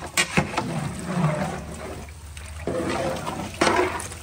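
Meat and broth sloshing as a long metal ladle stirs them in a large cooking pot, with a few sharp knocks near the start and one more near the end.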